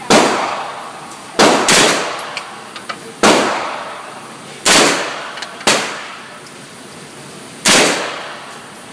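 MP5-style submachine gun fired as single shots at an uneven pace: seven sharp reports over about eight seconds, two of them close together about a second and a half in. Each shot rings out in a long echo off the concrete of the indoor range, with faint clinks between the shots.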